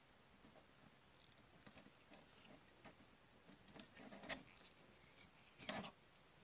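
Faint handling sounds of gloved hands fitting a small metal C-frame screw press onto a plastic toy part: soft rustles and scattered light clicks, with two sharper clicks about four and five and a half seconds in.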